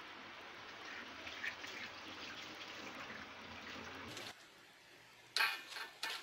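Leftover batter crumbs (kremes) frying in hot oil: a steady sizzle with small crackles that cuts off about four seconds in, followed by a few short louder sounds near the end.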